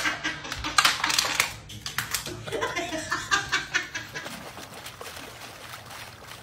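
Quick clicking and clattering of small hard objects on a hard floor for about the first second and a half, then a short laugh, then only a faint steady background.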